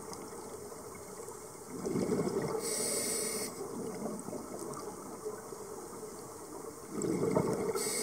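A scuba diver breathing underwater through a regulator: a burst of exhaled bubbles followed straight away by a hissing inhale. It happens twice, about five seconds apart, over a steady underwater wash.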